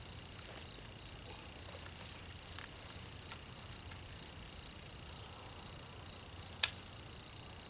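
Steady, pulsing insect chorus, with one sharp click about six and a half seconds in: the frozen AR-15 in 300 Blackout being dry-fired as its trigger is pulled, and it fails to go off.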